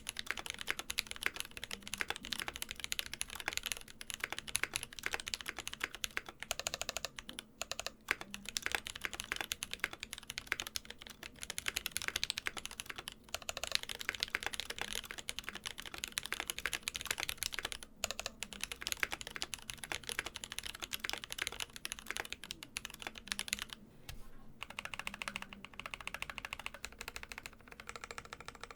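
Undampened mechanical keyboard with Durock Koala tactile switches on an aluminium plate and PBT keycaps being typed on fast and continuously: a dense stream of sharp key clacks. About four-fifths of the way through, after a brief pause, the typing moves to the larger stabilized modifier keys.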